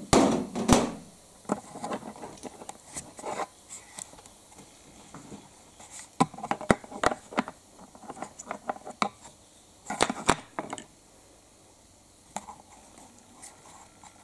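Kitchen handling clatter from a frying pan, chopsticks and dishes. A loud knock and rattle comes right at the start, then bunches of light clicks and knocks about six to seven seconds in and again around ten seconds in.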